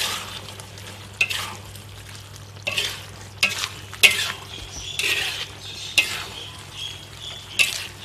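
Spatula stirring and scraping through a simmering beef-and-vegetable stew in a metal wok, in uneven strokes about once a second, with the sauce sizzling in the pan between strokes.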